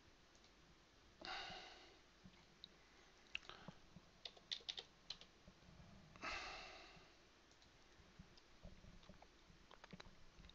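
Near silence with faint computer mouse clicks and key taps, bunched about three to five seconds in and again near the end, and two short soft hisses about a second in and about six seconds in.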